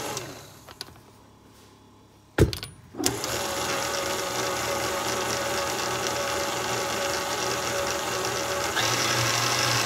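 Electric stand mixer with a flat beater mixing dry flour and salt in a metal bowl: the motor winds down and stops near the start, a sharp click comes about two and a half seconds in, then the motor starts again and runs steadily with a steady whine, stepping up louder near the end.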